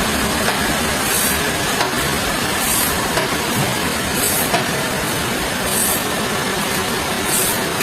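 Sawmill machinery running steadily, with a short high hiss repeating about every one and a half seconds.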